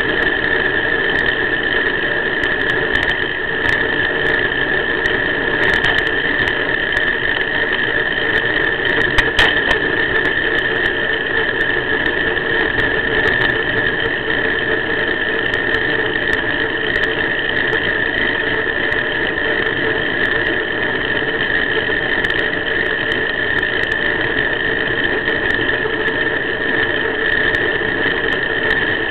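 A steady high-pitched whine that never changes in pitch, with a fainter higher tone above it, over a rushing noise. This is electrical interference from the cheap USB action camera itself, not a sound of the ride.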